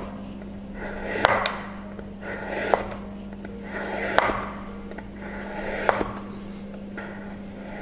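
Chef's knife slicing a carrot lengthwise on a bamboo cutting board: four slow strokes about a second and a half apart, each a short rasp through the carrot ending in a sharp tap of the blade on the board. A low steady hum runs underneath.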